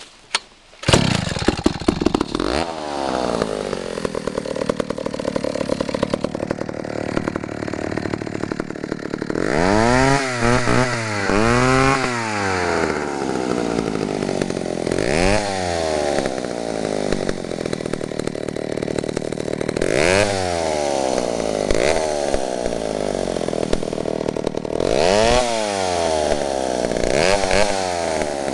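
Vintage McCulloch 1-52 two-stroke chainsaw starting about a second in, then idling with its throttle blipped again and again, each rev rising and falling back to idle. It runs smoothly and responds cleanly to the throttle.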